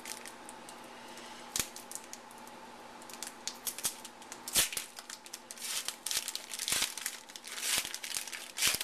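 A trading card pack's wrapper crinkling and crackling as it is handled and torn open, in scattered crackles that come thicker and faster after the first few seconds, over a faint steady hum.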